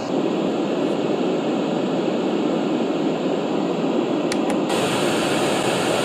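AIBORS white noise machine's speaker playing a steady white noise track. About four seconds in, two button clicks, then a different, hissier white noise track takes over.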